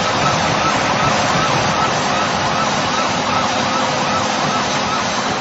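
Crowd roaring after a goal, with a wavering tone that rises and falls about three times a second above the crowd noise.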